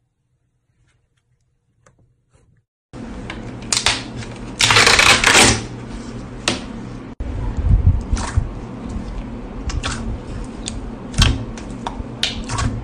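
Near silence for about three seconds, then clear slime in a tub being poked and pressed by hand: sharp sticky clicks and pops over a steady hiss, with a louder, longer squelch about two seconds after it starts.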